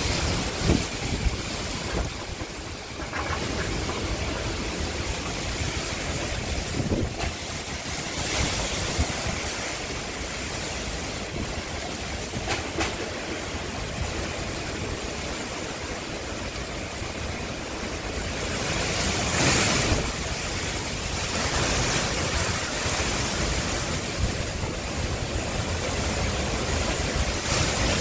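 Strong storm wind gusting through banana plants and trees, the leaves rushing and thrashing, with wind rumbling on the microphone. The gusts rise and fall, with the strongest swelling about two-thirds of the way through.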